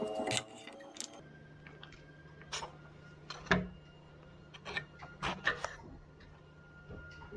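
Chef's knife knocking on a wooden cutting board in a few separate strokes as carrot rounds are cut, then scattered knocks as an eggplant is laid on the board and its end cut off, the loudest a single thump about three and a half seconds in. A faint steady hum lies underneath.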